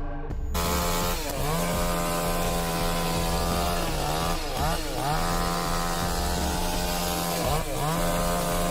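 Chainsaw running at high speed, starting about half a second in. Its pitch dips briefly and picks up again several times.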